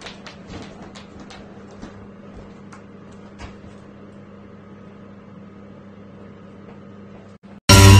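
Steady low hum in a room, with light irregular clicks and taps over the first few seconds, typical of a brown bear's claws on a hard floor as it walks. Loud music cuts in abruptly near the end.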